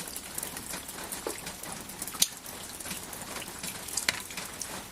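Steady rain falling, with single drops ticking sharply against the steady hiss; one louder drip lands a little past two seconds in.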